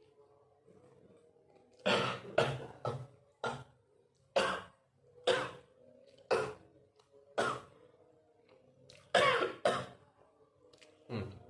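A person coughing hard after choking on food: about eleven harsh coughs at uneven spacing, starting about two seconds in, with a couple coming close together near the end.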